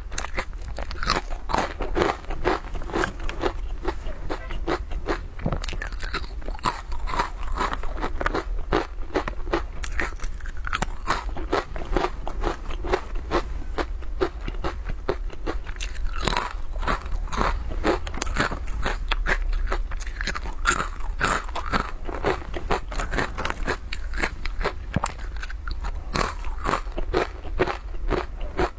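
Crunching and chewing of crispy guoba squares, the fried rice-crust snack, close to the microphone. A dense, continuous run of sharp crackling crunches as bite after bite is taken and chewed.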